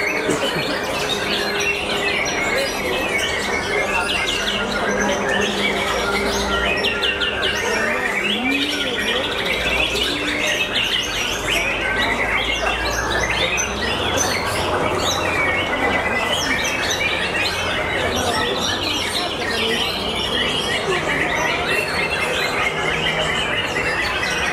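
White-rumped shama singing a long, fast, varied run of whistles and rapid chirping notes, steady throughout, over a low background din.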